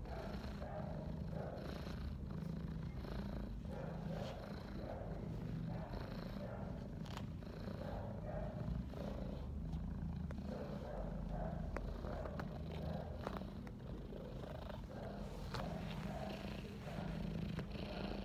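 Domestic cat purring steadily while being brushed, the low rumble swelling and fading in an even rhythm.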